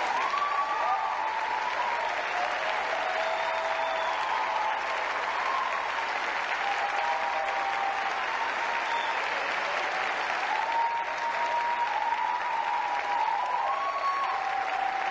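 Theatre audience applauding steadily, with drawn-out cheers carrying over the clapping.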